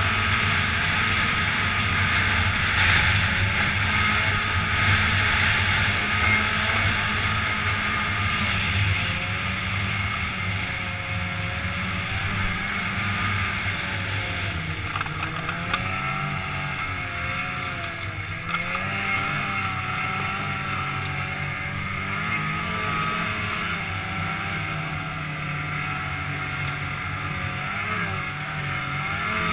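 Polaris snowmobile engine running as the sled is ridden along, with its pitch rising and falling with the throttle in the second half and wind noise underneath.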